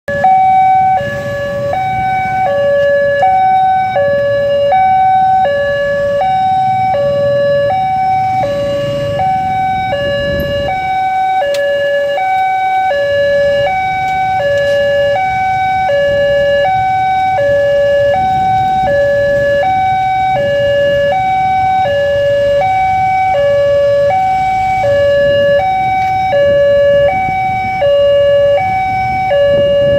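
Railway level crossing's electronic warning alarm sounding, an even two-tone high-low pattern repeating about once a second, warning that a train is approaching.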